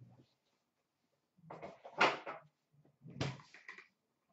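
Two short bursts of handling noise, something being moved, scraped or set down: one about a second and a half in, louder near two seconds, and another near three seconds.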